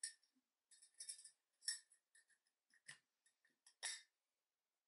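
IKEA KORKEN clip-top glass jars being handled: a string of faint, light clinks and taps of glass and the jars' wire-clasp lids, some with a brief ring.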